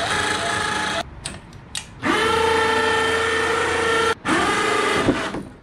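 Ceiling-mounted electric winch motor whining as it winds its wire rope to hoist a transmission, running in three stretches. The first run stops about a second in, a lower-pitched run of about two seconds follows while the transmission hangs on the cable, and a short run starts with a rising whine near the end.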